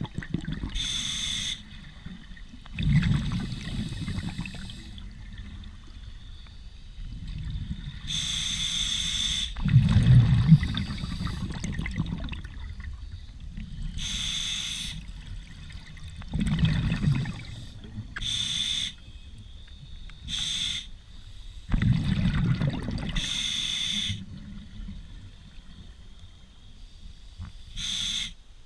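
A scuba diver breathing through a regulator underwater. Each inhale is a short hiss through the demand valve, and each exhale is a longer burst of low, rumbling bubbles, repeating through about five breath cycles.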